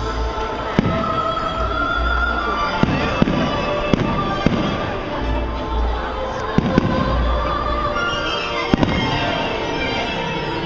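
Aerial fireworks shells bursting in the sky: a string of sharp bangs, about eight, with low booming between them, over music playing throughout.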